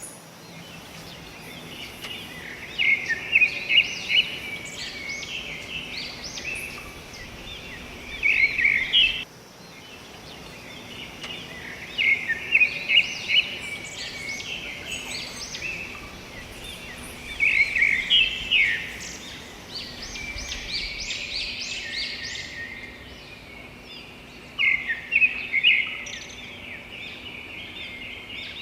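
Birds calling in repeated bursts of quick, high chirping notes, over a steady background of forest noise. The sound drops out briefly about nine seconds in.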